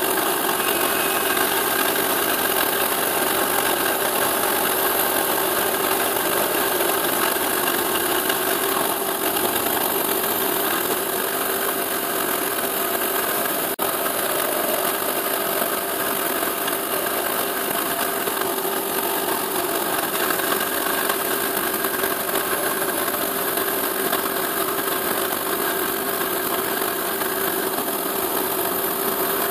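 CNC milling machine cutting a plastic sheet: a steady motor hum with a constant hiss from the stepper motors driving the axes.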